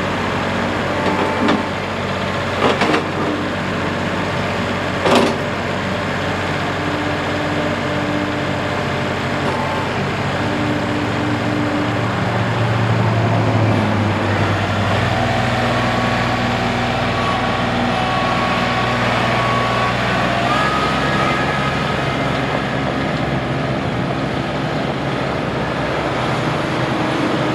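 Kubota L3901's three-cylinder diesel engine running steadily, its note shifting a few times around the middle: louder about twelve seconds in, then changing again near fifteen and twenty-one seconds. Three short sharp clicks or knocks come in the first five seconds.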